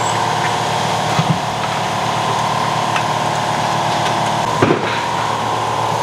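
A sharp crack about three-quarters of the way in, as the brick block supporting a tracked Polaris Ranger gives way, over a steady mechanical hum with a couple of light knocks near the start.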